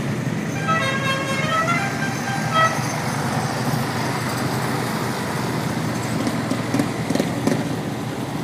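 Small engines of riding lawn mowers and other small vehicles running steadily as they pull away, with a horn sounding a quick run of several notes about a second in and one more short note a moment later.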